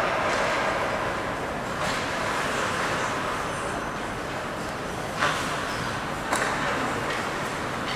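Hockey play: a steady scraping hiss of play on the playing surface, broken by two sharp knocks of stick or puck, about five seconds in and again a second later.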